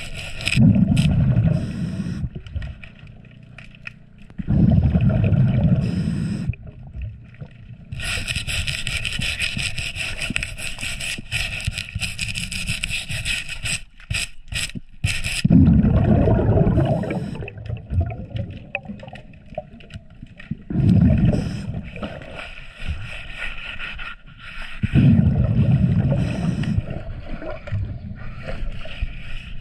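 Underwater, a scuba diver's exhaled bubbles gurgle in low rumbling surges of a second or two, five times, between hisses. Under them, a brush and scraper scrub fouling off a fibreglass boat hull.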